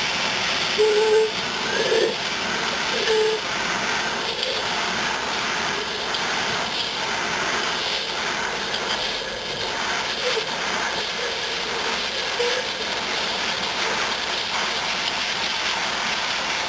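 Propane hand torch burning with a steady hiss, its flame held on an aluminum part to heat it for aluminum welding rods.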